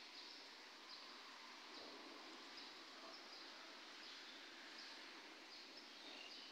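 Near silence: faint steady background hiss with scattered faint high chirps.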